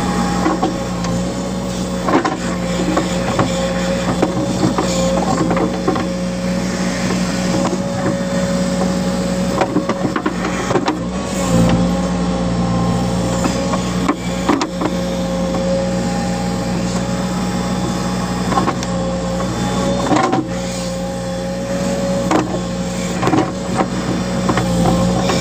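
Backhoe loader's diesel engine running steadily under load with a constant whine, as the backhoe bucket digs a pit; scattered knocks of the bucket and falling soil.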